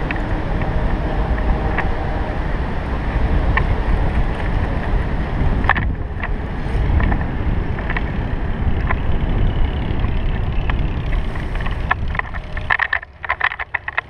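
Wind buffeting a GoPro's microphone during a tandem paraglider's low final glide, a steady loud rush that drops away sharply about a second before the end as the glider touches down. A few short knocks and scuffs follow as they land on the sand.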